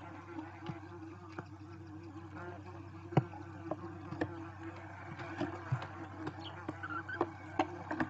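A steady low buzz runs under frequent short sharp clicks and scratches as barn owl chicks shuffle and step about on the debris of their tree-hollow nest; the loudest click comes a little after three seconds in.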